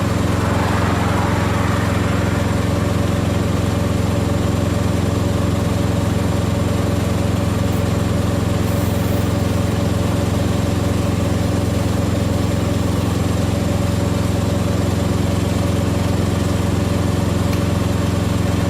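Heavy diesel truck engine idling steadily, a constant low drone.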